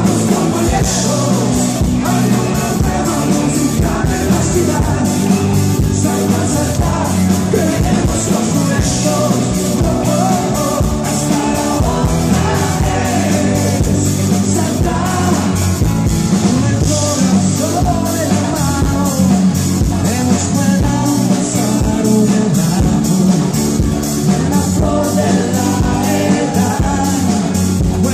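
Live pop band with electric guitars, keyboard and percussion playing an upbeat song over loudspeakers, a male lead singer singing over a steady beat.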